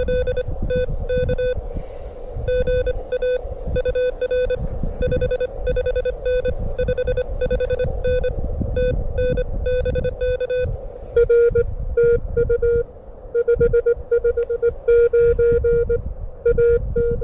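Morse code from a ham radio transceiver: a single tone of about 500 Hz keyed on and off in rapid dots and dashes. About two-thirds of the way through, the tone turns louder and crisper. Wind rumbles on the microphone underneath.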